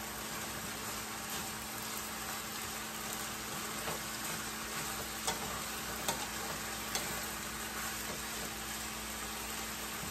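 Chicken and zucchini sizzling in oil in a hot pan while being stirred with a wooden spatula, with a few light knocks of the spatula against the pan in the middle.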